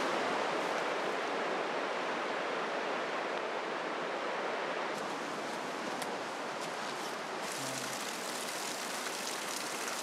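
Clear mountain stream running over a shallow pebbly bed: a steady rushing of water that eases slightly in the second half.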